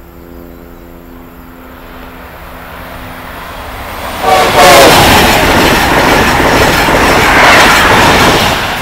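An Amtrak locomotive's Nathan K5LA five-chime horn sounds as the train approaches, growing steadily louder. About four seconds in its pitch drops as the train passes close by and the horn stops. The loud noise of the high-speed train passing takes over and eases near the end.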